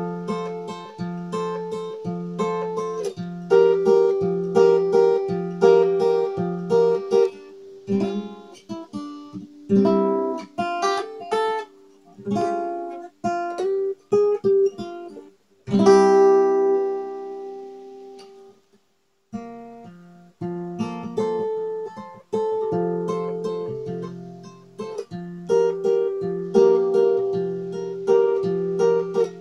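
Solo guitar jam: a steady, repeating pattern of picked bass notes and chords. About halfway through, a chord is struck and left to ring out until it nearly fades away, then the picking pattern starts again.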